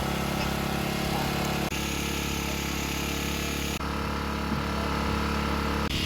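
A small engine running steadily, its sound shifting slightly at a few abrupt cuts.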